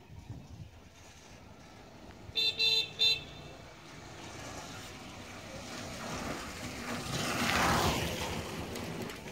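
A vehicle horn beeps three quick times. Then a vehicle passes by on the road, its noise swelling to a peak near the end and easing off.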